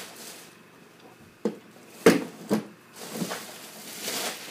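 Several scattered knocks and bumps, four or so spread over two seconds, then a short rustle, as the half of a disassembled printer is picked up and carried.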